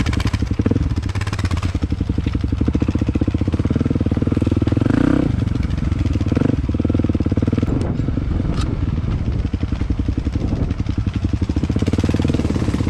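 Dirt bike engine running steadily.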